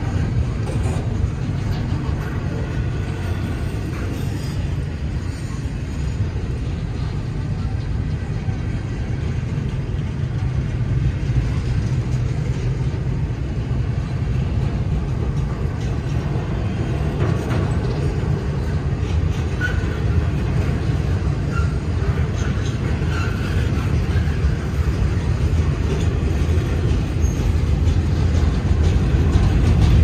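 Double-stack intermodal container train rolling past on its well cars: a steady rumble of steel wheels on the rails, growing louder near the end.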